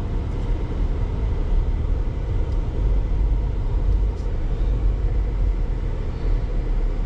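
Steady low rumble of a car heard from inside the cabin, engine and road noise with no distinct events.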